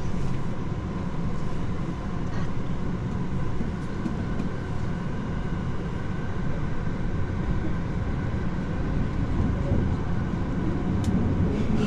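Fukuoka Nanakuma Line subway train running through the tunnel between stations, a steady rumble heard from inside the car.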